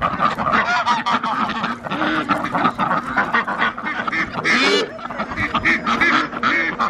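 A flock of farmyard ducks calling, with many short quacks and honks overlapping continuously. One louder call comes about four and a half seconds in.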